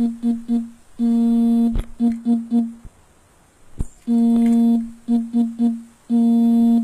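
A low-pitched electronic buzzer sounding a repeating signal: one long buzz of nearly a second followed by three short quick buzzes, over and over every two to three seconds.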